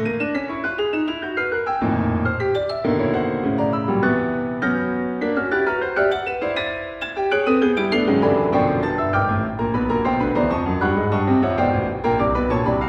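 Solo piano playing a concert piece, with quick successions of notes and chords across the keyboard, down into the bass.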